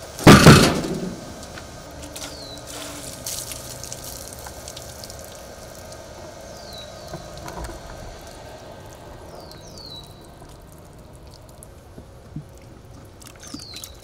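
A heavy freshly sawn walnut slab flipped off the sawmill and landing with a loud thump near the start. Then water poured from a bucket splashes over the slab.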